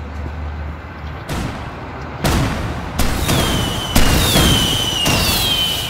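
Fireworks going off overhead: about five sharp bangs, roughly a second apart, the loudest near the middle. High whistles glide slowly downward through the second half.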